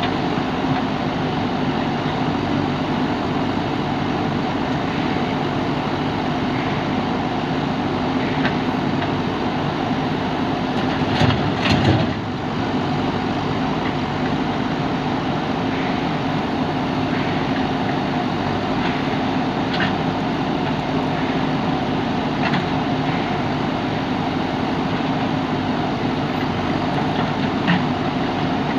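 JCB backhoe loader's diesel engine running steadily, with a brief louder clatter a little before halfway through.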